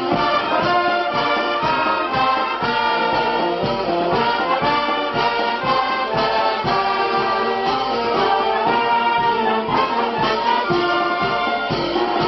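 Brass band playing: trumpets and other brass carry a melody over a steady bass-drum beat.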